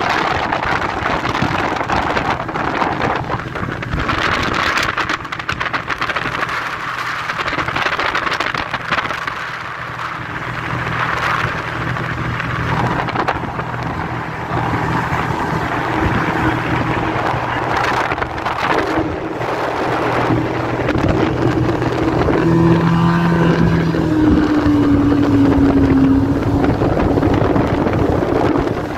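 Evinrude 115 two-stroke V4 outboard running at speed, pushing the speedboat across the lake, under heavy wind buffeting on the microphone. Near the end the engine note dips slightly.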